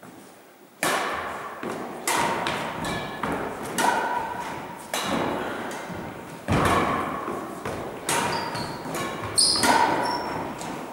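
Badminton rally: rackets striking the shuttlecock in a string of sharp hits, one about every second to second and a half, each echoing in a large gym hall.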